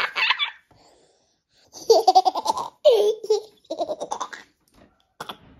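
A child laughing uncontrollably in a fit of giggles, several bursts of rapid breathy laughter pulses after a short pause.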